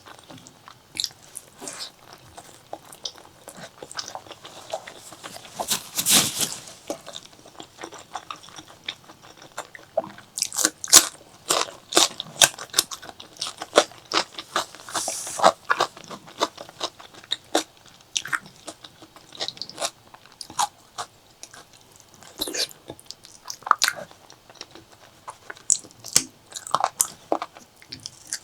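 Close-miked eating sounds: chewing and biting on pork leg curry with rice, with many short wet clicks and crackles and a couple of longer slurping or smacking smears.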